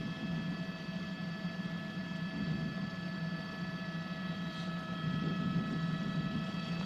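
News helicopter running steadily, heard inside the cabin: a low drone with several steady high whining tones over it.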